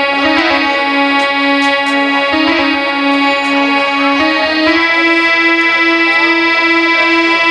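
A keyboard instrument playing a sustained melody over a low note pulsed about two to three times a second. The pulsed note steps up in pitch a little past halfway.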